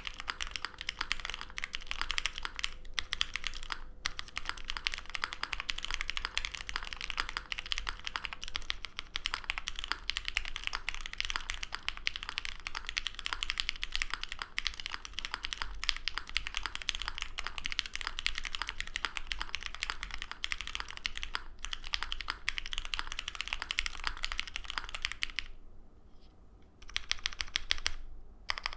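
Fast, continuous typing on an ai03 Vega mechanical keyboard with lubed Cherry MX Black Hyperglide linear switches in an aluminum plate, under GMK keycaps. Near the end the typing briefly stops, then resumes.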